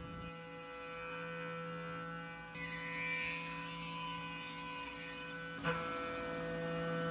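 CNC milling machine spindle running while an end mill cuts a pocket in an aluminium plate under flood coolant: a steady hum with several held tones. A hiss of cutting and coolant spray comes in about two and a half seconds in, and there is a single brief knock a little before the end.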